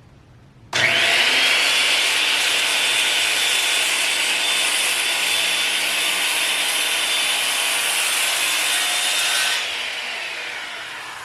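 Worm-drive circular saw starting about a second in and cutting through a 6x6 wooden timber with a steady high whine, then spinning down with a falling whine near the end.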